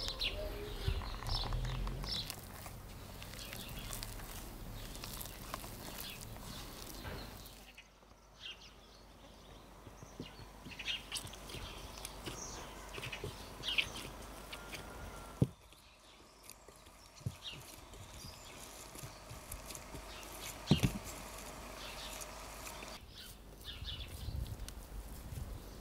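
Outdoor rural ambience with birds chirping throughout, under soft handling sounds of flour and dough being worked by hand in a glass bowl. A few sharp knocks stand out, the loudest about halfway through and again a few seconds later.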